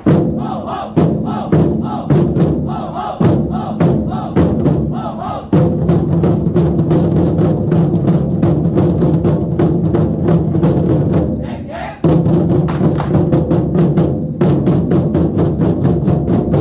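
Massed lion dance drums played together in loud, fast rolls broken by accented strokes, with group shouts from the drummers mixed in.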